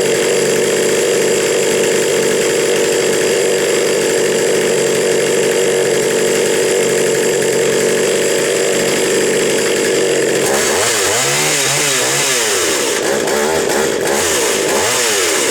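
Jonsered 451E 44 cc two-stroke chainsaw engine running steadily, then from about ten seconds in revved up and down several times.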